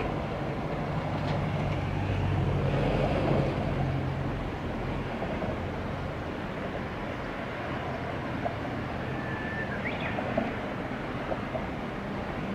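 Chichibu Railway 5000 series electric train heard out of sight, its low rumble fading away over the first few seconds and leaving a steady outdoor hiss. A brief high whistle sounds about ten seconds in.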